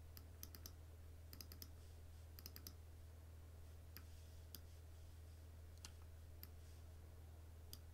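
Faint computer mouse clicks, some single and some in quick runs of two to four, over a low steady hum.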